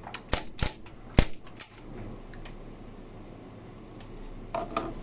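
Suppressed 9mm IWI UZI PRO with a Resolute Monocore suppressor firing three sharp shots within about the first second and a quarter, the third the loudest. A few light metallic clicks follow near the end.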